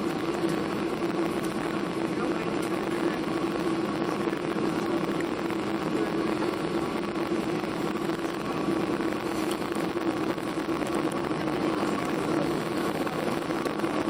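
Steady drone of a Boeing 737-800's CFM56 jet engines and airflow, heard from inside the passenger cabin, with an even hum and a faint steady whine.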